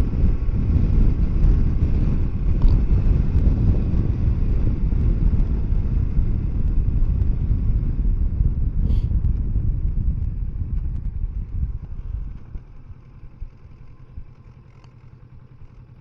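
Kawasaki Versys 650 parallel-twin motorcycle under way, engine and wind noise on the onboard microphone. About twelve seconds in the sound falls away sharply as the bike eases off, leaving a much quieter, steady low engine hum.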